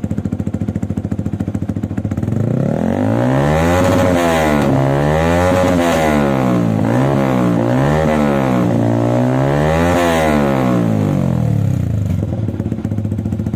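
Yamaha R15 V3's 155 cc single-cylinder engine blipped through a replica Austin Racing slip-on exhaust, with the muffler's sound valve open. It idles, then is revved up about five times in quick succession with the pitch rising and falling each time, and drops back to idle near the end.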